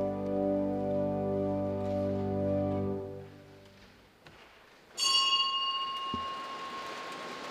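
A held organ chord of steady tones fades away about three seconds in, ending the prelude music. After a short hush, a sudden bright ringing strike comes about five seconds in, its high tones dying away while one tone lingers.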